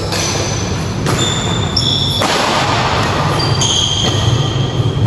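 Badminton rally: a shuttlecock struck by rackets with sharp hits, and court shoes giving short, high squeaks on the floor as the players move and lunge.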